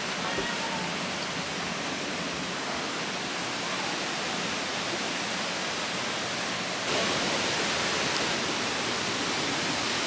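Rushing water of a rocky mountain river: a steady, even rush that gets louder and brighter about seven seconds in.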